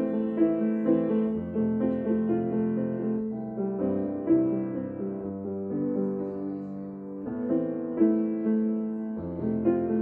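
Background piano music: notes struck over held chords.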